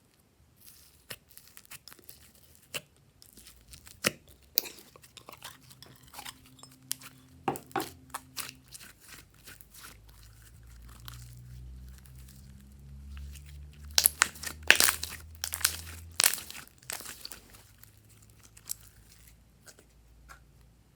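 Glossy slime being stretched, pressed and folded by hand: a run of sticky clicks, pops and crackles. They come thickest and loudest about two-thirds of the way through.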